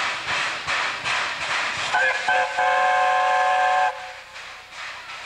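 Narrow-gauge steam locomotive hissing steam from its open cylinder cocks, with a regular beat. About two seconds in, its whistle gives two short toots and then a steady blast of about a second and a half.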